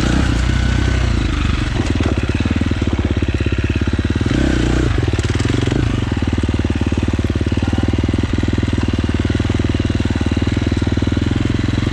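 Husqvarna FX 350 four-stroke single-cylinder dirt bike engine running at a steady low pitch, with a short change in pitch about four seconds in.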